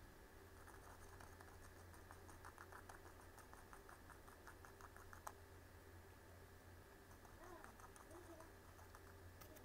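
Faint, quick tapping and clicking of a thin wooden stick against a clear plastic candy mold as melted chocolate is dabbed into it, busiest in the first five seconds, with one sharper click about five seconds in.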